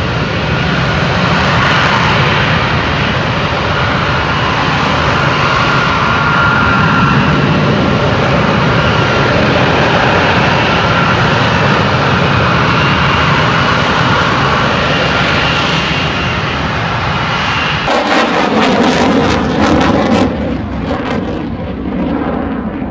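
F-35B Lightning II hovering on its F135 jet engine and shaft-driven lift fan: a loud, steady jet roar with high whining tones held over it. About 18 seconds in, the sound changes suddenly to a quieter, crackling jet noise that fades.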